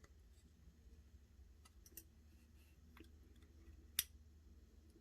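Faint small clicks of metal lock pins and a pick tool being handled while sorting the pins of a gutted pin-tumbler lock, with one sharper click about four seconds in.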